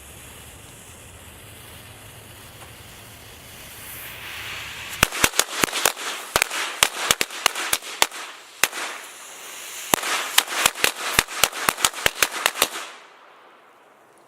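A strip of firecrackers going off: a short hiss, then a rapid, irregular string of sharp cracks lasting about eight seconds, with a brief lull partway through before a second run of bangs that stops abruptly.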